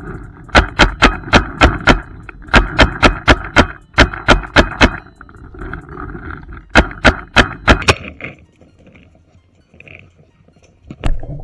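Paintball marker firing in rapid bursts of five to seven loud, sharp shots, about five a second, four bursts in a row, then a single shot near the end.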